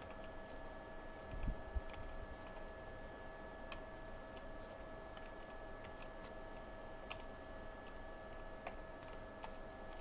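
Typing on a computer keyboard: scattered, faint key clicks, with a soft low thump about one and a half seconds in. A steady faint electrical hum lies beneath.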